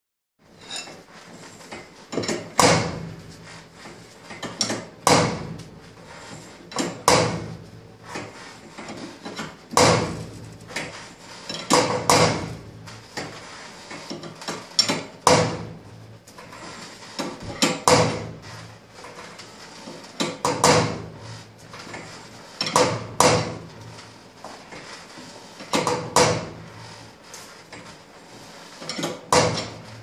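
Garage door torsion spring being worn a turn at a time with steel winding bars: a regular series of metal clanks and clicks, one cluster roughly every two and a half seconds, as the bars are seated in the winding cone and turned.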